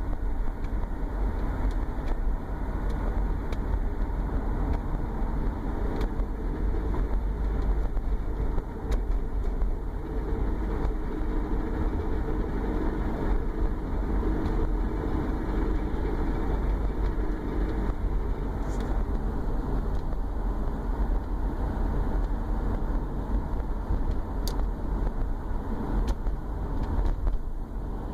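2011 Subaru Forester driving with a steady low drone under the engine and road noise, a little stronger for several seconds in the middle. The drone comes under light load with the torque converter unlocked at 1,000–1,500 rpm.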